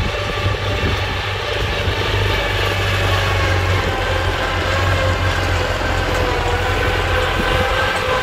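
Engine of a loaded tracked rice-hauling carrier running steadily as it crawls toward the listener, growing a little louder, its pitch drifting slowly.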